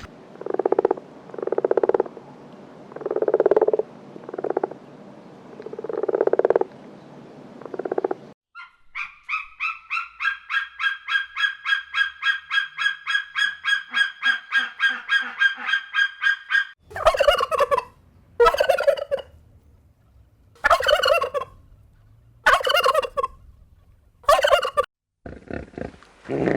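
Farm fowl calling in three separate stretches: first a series of low calls, then a fast, even pulsing call of about four pulses a second lasting several seconds, then a run of louder calls about a second apart.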